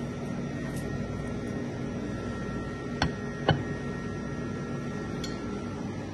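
Steady machine hum with a few faint steady tones in it. Two short sharp knocks come about half a second apart, roughly halfway through.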